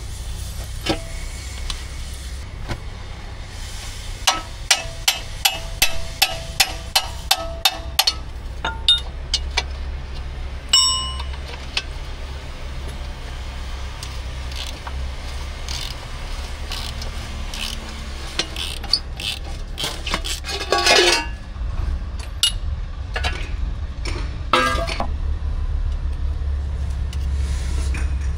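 Metal hand-tool work on an excavator's travel motor cover: a run of about a dozen even metallic clicks, roughly three a second, then a single ringing clink about eleven seconds in, and later short bouts of scraping. A steady low hum runs underneath.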